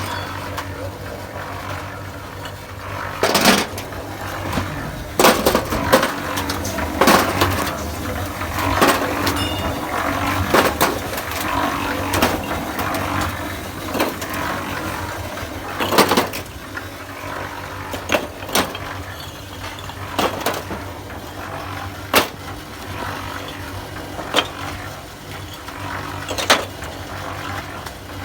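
Concrete mixer running: a steady motor hum under irregular sharp clanks and knocks, a second or two apart.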